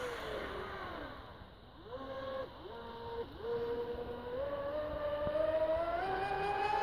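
Electric whine of an HPR 135 RC racing catamaran's TP 5840 1150KV brushless motor on 10S, with a Kontronik Kosmik 200A controller. The whine falls in pitch and fades as the boat runs away, then rises in three short throttle steps as it turns at the far end. Near the end it climbs steadily in pitch and loudness as the boat speeds back.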